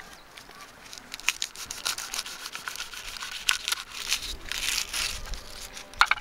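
Dry garlic skins crinkling and tearing as a garlic bulb is peeled and split into cloves, with a few sharp clicks of a knife blade against a wooden cutting board, the loudest near the end.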